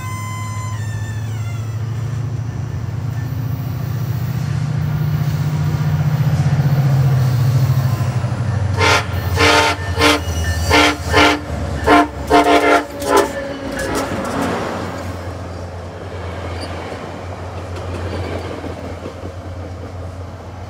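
A passenger train rumbles closer, then its multi-tone horn sounds in a quick run of about eight short blasts over some four seconds, played as a horn show, before the rumble fades away.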